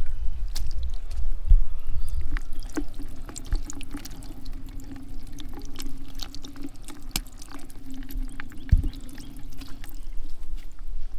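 Water pouring and dripping, with many small splashes and clicks. A steady low hum runs under it from about two seconds in until near the end.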